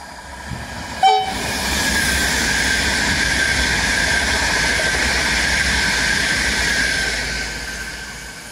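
ED250 Pendolino high-speed electric multiple unit passing straight through the station at speed: a short horn blast about a second in, then a loud rush of wheels and air that holds for several seconds and fades near the end as the train draws away.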